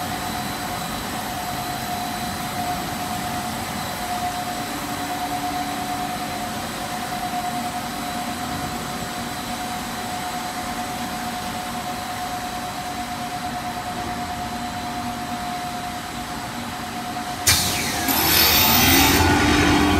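CPVC pipe extrusion line machinery running: a steady mechanical hum with a constant whine from the line's motors and drives. About two and a half seconds before the end, a much louder rushing machine noise cuts in suddenly, with a rising tone under it as something spins up.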